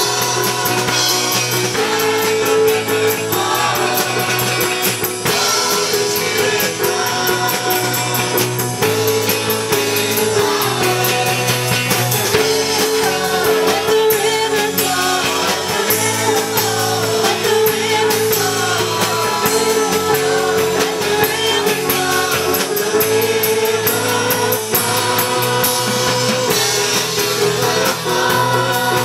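A church singing and instrumental group performing a song live: voices singing over a band with drums and guitar, playing steadily throughout.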